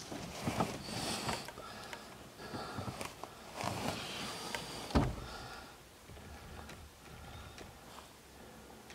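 Handling noise of a handheld camcorder being jostled: rustling and knocks while the picture shakes, with one sharp bump about five seconds in, then quieter.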